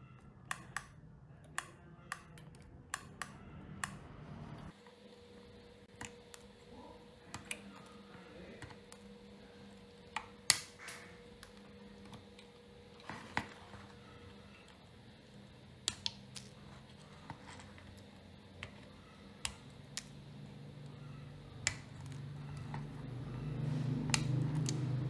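Scattered sharp clicks and taps of small hard parts and hand tools being handled on a workbench, over a low hum that drops away about five seconds in and grows louder near the end.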